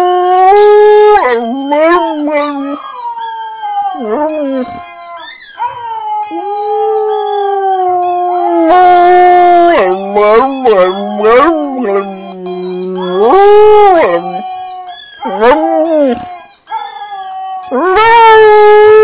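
Husky howling: a series of long, wavering howls that rise and fall in pitch, with short breaks between them and at times two howling voices overlapping.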